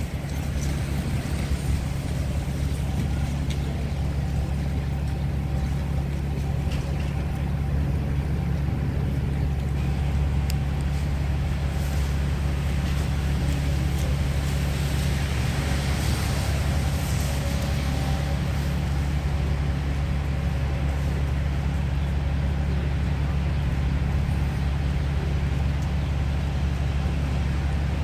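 2011 Orion VII third-generation diesel transit bus idling at a stop, a steady low engine drone.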